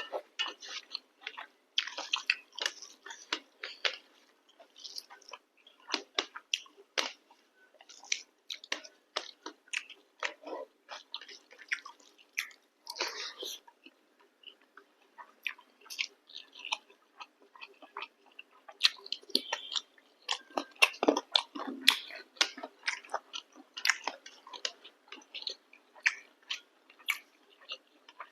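Close-up mukbang chewing and biting of chicken curry with chapati: many short, irregular mouth clicks and smacks, busiest about two seconds in, around the middle, and again in the last third.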